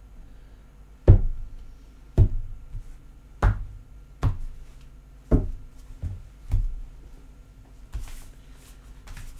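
Tarot cards being put down on a tabletop one after another: about eight sharp knocks, roughly a second apart.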